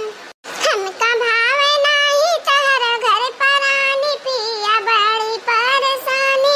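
A high-pitched voice singing a song in long, wavering held notes, with a brief pause shortly after the start.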